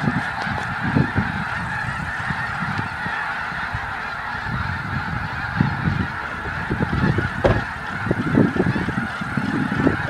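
A huge flock of snow geese calling all at once: a dense, unbroken din of overlapping honks. Intermittent low rumbles sit beneath it.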